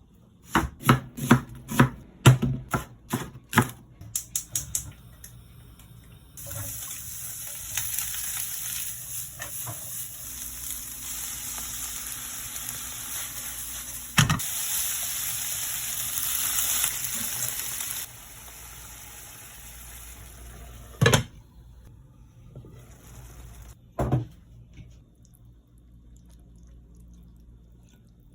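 Kitchen cooking sounds: a quick run of sharp knocks, about three a second, then a steady hiss of running water or frying lasting about twelve seconds, then two single knocks.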